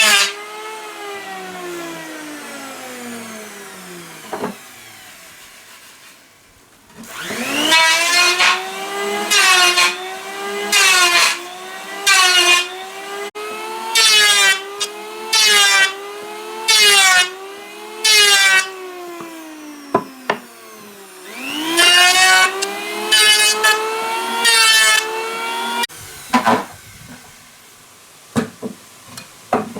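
A high-speed handheld power tool cutting wood. The motor winds down, spins back up about seven seconds in, then bites in short bursts about every second and a half.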